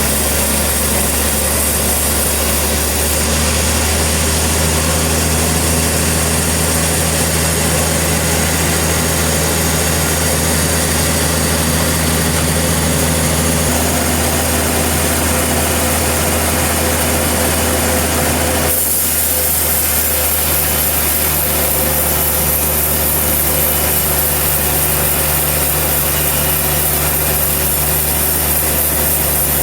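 Portable sawmill running steadily under its engine while the blade cuts through a log. About nineteen seconds in, the sound changes abruptly to a different steady running sound.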